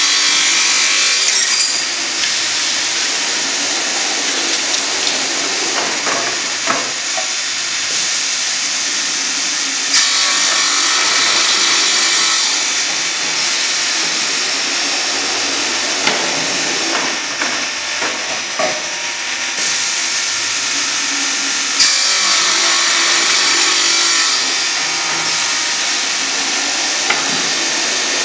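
Pneumatically driven crosscut saw running steadily, its blades cutting through wooden panels as air cylinders draw the sled through. The high-pitched sawing noise grows brighter three times: near the start, about ten seconds in and about twenty-two seconds in.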